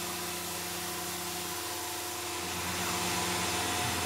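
Tormach 770 CNC mill running at a steady spindle speed while a chamfer mill cuts a heavy chamfer along the edge of an aluminium part, a steady hiss over a steady hum. It grows a little louder about two and a half seconds in.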